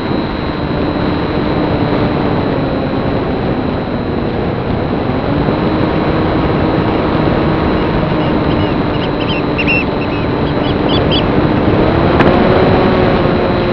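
Small electric brushless motor and slowfly propeller of an FPV foam plane running in flight, under a steady rush of wind. The motor's pitch sags, then rises about five seconds in and again about twelve seconds in. A few short high chirps come between about nine and eleven seconds in.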